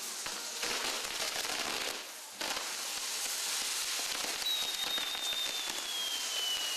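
Castillo fireworks burning with a dense, continuous crackle, easing briefly about two seconds in. From about halfway, a single high whistle slowly falls in pitch over the crackle.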